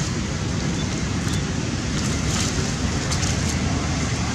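Steady low rumbling noise of wind buffeting the microphone, with a few faint crackles about two and three seconds in.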